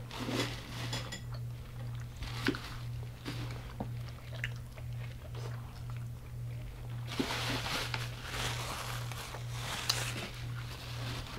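Eating at a table: chewing of deep-fried food with scattered clicks and clinks of dishes, busier for a few seconds about seven seconds in, over a steady low electrical hum.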